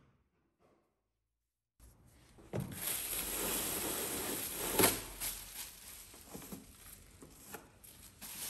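Thin disposable plastic apron being pulled off a wall-dispenser roll: loud crinkling rustle starting about two and a half seconds in, with a sharper crackle about five seconds in, then quieter rustling and a few small clicks.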